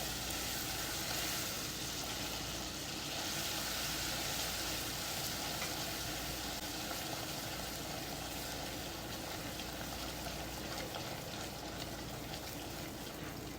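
Butter sizzling steadily as it melts into hot caramelized sugar in a pan while being stirred in, the first step of a toffee sauce. The sizzle eases slightly toward the end.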